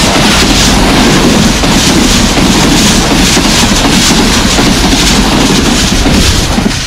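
Pakistan Railways Green Line express coaches passing close by at about 110 km/h: a loud rush of wind and wheel noise with a rapid clatter over the rail joints. It drops away near the end as the last coach goes by.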